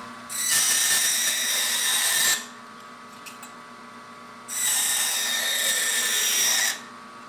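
Woodcutting bandsaw running at about 1400 feet per minute with a quarter-inch, 18-teeth-per-inch TuffTooth high-blade-speed metal-cutting blade, friction-cutting through a thin piece of metal in two cuts of about two seconds each. Each cut is a loud, high grinding hiss as the blade grinds its way through. Between the cuts the saw runs on with a steady hum.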